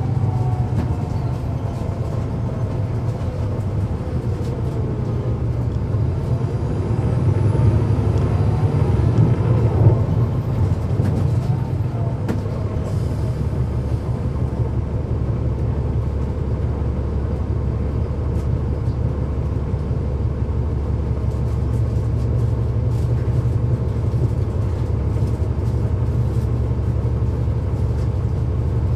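Cummins ISL9 diesel engine and ZF Ecomat transmission of a transit bus, heard from on board while running: a steady low drone, with a whine that falls in pitch over the first few seconds, then rises in pitch and grows louder until about ten seconds in before settling back to a steady rumble.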